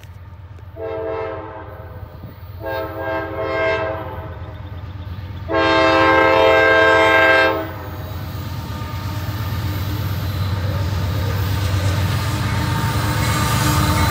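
CSX diesel freight locomotive's air horn sounding three blasts, the third the longest and loudest. Then the rumble of the approaching locomotive and train grows steadily louder as it draws near.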